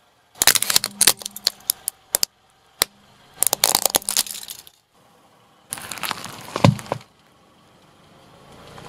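Hard plastic wind-up toy cracking and snapping as a car tyre rolls over and crushes it: a quick run of sharp cracks for about two seconds, a lone snap, then another burst of crunching. A heavier crunch with a dull thump follows partway through the second half.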